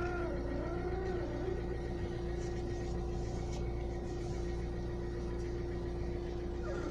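Renault Scenic 2 1.5 dCi diesel engine idling steadily while the steering wheel is turned, with a squeak from the steering that rises and falls in pitch during the first second or so and starts again at the very end.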